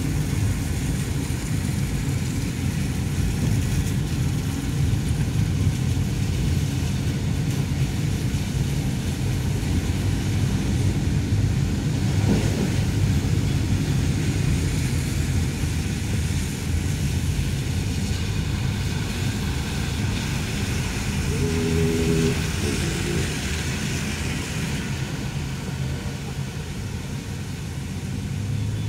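Steady engine and road rumble heard from inside a moving car, with the hiss of tyres on a wet, rain-soaked road. A brief pitched tone sounds about three-quarters of the way through.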